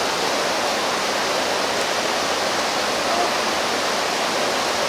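Steady rushing of flowing water, an even unbroken roar with no change in level.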